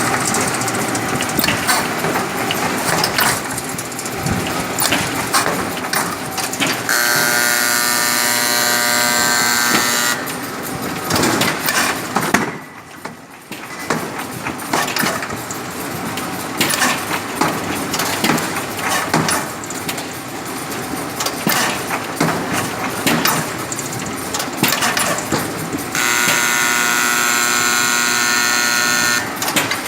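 A semi-automatic folder-gluer running, a continuous clatter of rapid clicks and knocks from the machine feeding and folding cartons. Twice a steady buzzer tone sounds over it for about three seconds each time, and the clatter dips briefly in between.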